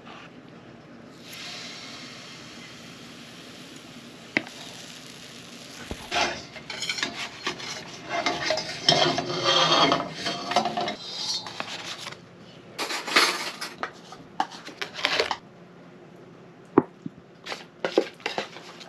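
Pancake cooking in a small galley: a steady sizzle of batter frying in a pan for the first few seconds, then irregular clatter of a spatula and ladle against the pan and bowl. Near the end come a few sharp clinks of a knife and fork on a plate.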